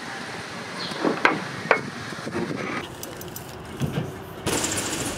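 BMX bike in street riding: two sharp knocks a little over a second in, then a rough scraping noise near the end.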